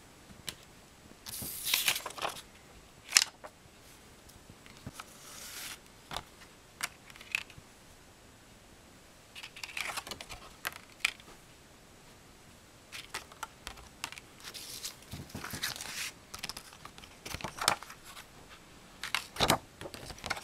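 Paper booklet and card inserts rustling as they are pulled from and handled over a clear plastic CD jewel case, with sharp plastic clicks and taps from the case. The sounds come in short scattered bursts with quiet gaps between.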